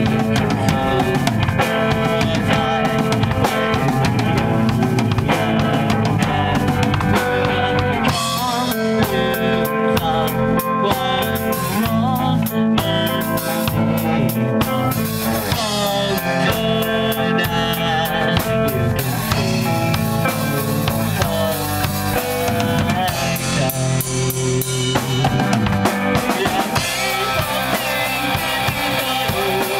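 Rock band music driven by a drum kit, with snare and bass drum, over layered instruments. The arrangement changes about eight seconds in.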